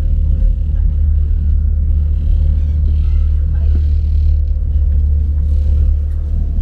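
Steady low rumble of a passenger ferry's engine while the boat is under way, with a faint constant hum over it.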